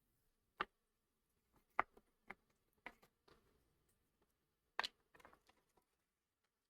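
Light clicks and taps from small items being handled on a work surface: a handful of separate clicks spread out, the loudest about five seconds in, followed by a few faint ticks.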